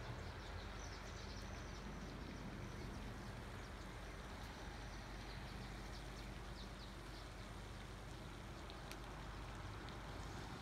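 Steady outdoor background noise with a low hum, and a few faint high bird chirps now and then.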